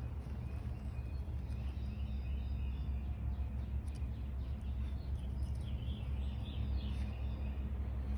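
Steady low outdoor rumble, with small birds chirping from about three to seven seconds in.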